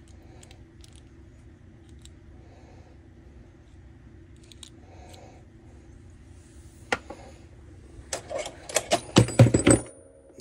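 Small metal hand tools clinking and clattering as they are rummaged through. There are light scattered clicks at first, a sharp click about seven seconds in, then a loud burst of jangling clatter near the end.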